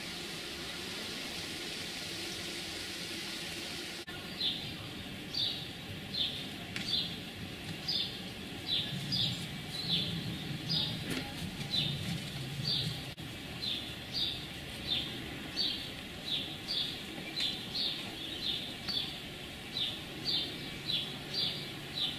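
A bird calling over and over, a short high falling chirp repeated nearly twice a second, starting about four seconds in after a stretch of steady hiss.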